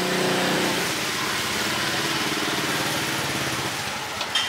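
A small engine running steadily, its pitch shifting a little, fading near the end, with one brief sharp knock just before the end.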